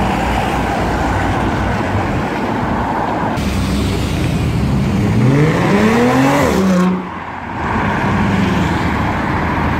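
City street traffic, with car and truck engines running and passing. About halfway through, one car accelerates hard: its engine note climbs steadily for about a second and a half, then drops away.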